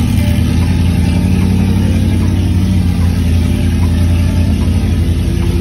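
Off-road vehicle's engine running steadily at low crawling revs, a continuous low rumble.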